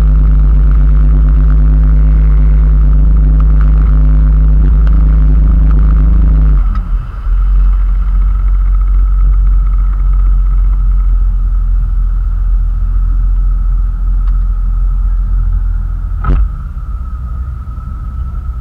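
Motorboat engine running steadily at speed, then throttled back abruptly about a third of the way through, leaving a lower rumble of engine and water as the boat slows. A single sharp knock near the end.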